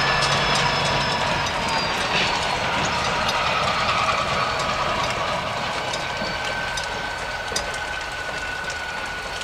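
Freight train cars rolling along the track at a distance, their wheels clicking and clattering with a thin steady squeal. The sound slowly fades as the cars move away.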